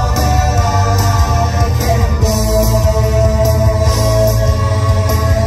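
Live band music with a male singer, amplified through a stage PA, with one long held note from about two seconds in.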